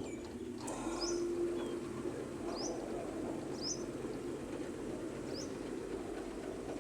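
A small bird chirping: four short, high, rising chirps a second or so apart, over a steady low background hum. There is one sharp click shortly after the start.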